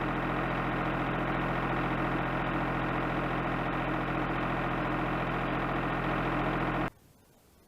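A machine or motor running steadily with an even hum, cutting off suddenly near the end.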